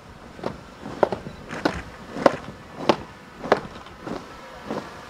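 Marching troops' boots stamping in unison on a dirt track in parade step, about one step every 0.6 seconds, loudest in the middle and weaker near the end.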